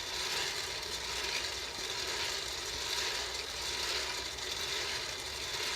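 Bar Well electric coffee roaster running steadily, its stirring arm sweeping the beans around the heated pan, late in a light roast.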